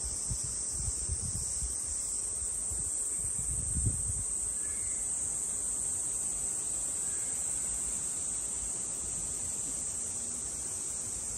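Steady, high-pitched chorus of insects droning without a break, with a few soft low bumps in the first few seconds.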